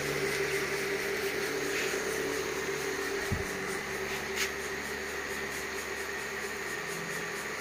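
Electric pedestal fan running close by with a steady hum and rush of air. There is one short knock a little over three seconds in.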